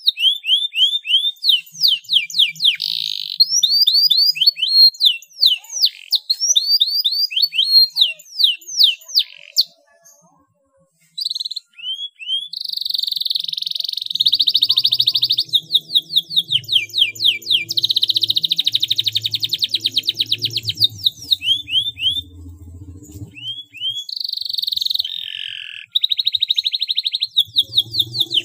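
Domestic canary singing a long song of rapid rolling and rattling trills, runs of fast repeated high notes, broken by a short pause about ten seconds in.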